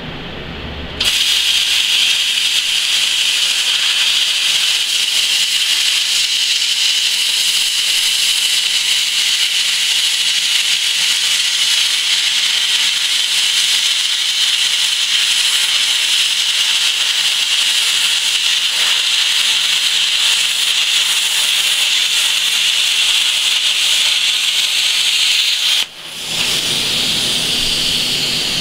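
Plasma cutter set to 40 amps cutting a steel plate: a loud, steady hiss of the arc and air jet starts about a second in and runs for some 25 seconds. Near the end it cuts out abruptly and gives way to a duller rushing noise.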